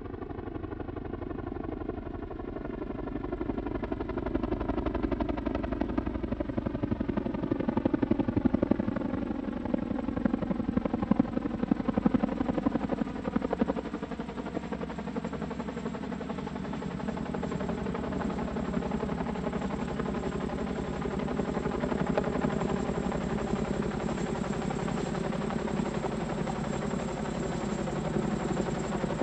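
CH-47 Chinook tandem-rotor helicopter flying overhead: rapid rotor chop over the twin turbine engines, with a sweeping, phasing tone as it moves. It grows louder to a peak about ten seconds in, then settles to a steady level, with a thin high turbine whine coming through in the second half.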